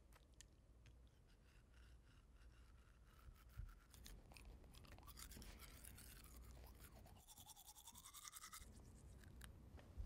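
Faint, irregular scrubbing of a manual toothbrush's bristles against teeth.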